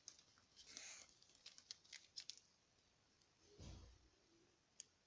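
Faint rustling and small clicks of paper being handled, with a soft thump about three and a half seconds in.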